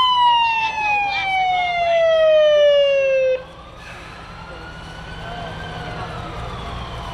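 Emergency vehicle siren sounding a long falling wail that cuts off abruptly about three and a half seconds in. After it stops, a fainter siren keeps wailing slowly up and down.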